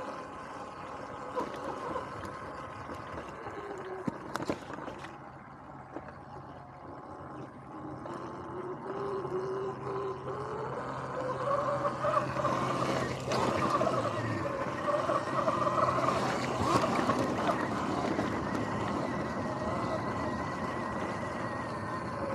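Sur-Ron X electric dirt bike riding off-road: the electric motor's whine rises in pitch as the bike picks up speed, and grows louder in the second half. A few sharp knocks come through around a fifth of the way in.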